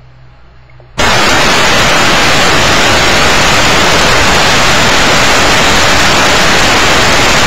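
Loud, steady radio static hiss from a Motorola Minitor II pager and a Uniden Bearcat BC350C scanner, cutting in suddenly about a second in: the open channel after the alert tones, just before the dispatcher's announcement comes through.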